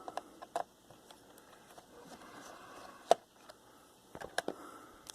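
Scattered light plastic clicks and taps as a laptop's cover is worked loose from its clips, with one sharper click about three seconds in and a few quick clicks a second later.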